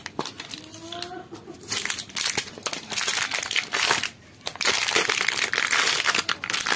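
Plastic blister and cardboard packaging of a new clutch friction plate set being torn open and crinkled by hand, in irregular crackly bursts. There is a short lull about four seconds in, then the loudest, most continuous crinkling near the end.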